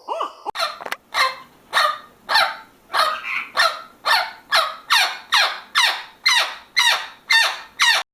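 A bird calling in a rapid, even series of about fifteen short harsh calls, roughly two a second, each falling in pitch.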